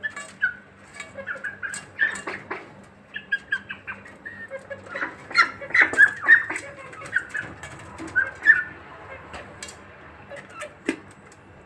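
Young poultry peeping in many short, high calls, with sharp taps and clicks of bills pecking at feed dishes; busiest in the middle.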